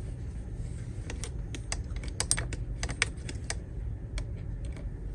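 Light, irregular clicks and taps of small plastic and metal RC parts being handled: the steering rack being set back onto its posts over the new flange bearings and washers. The clicks come thickest a couple of seconds in.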